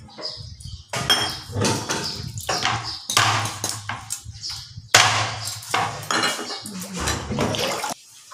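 Meat cleaver chopping a whole raw chicken on a wooden cutting board: a run of heavy, sharp chops, roughly one to two seconds apart.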